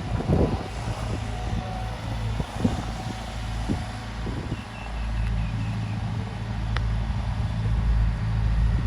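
Excavator's diesel engine running with a steady low rumble, with a few scattered knocks and clunks.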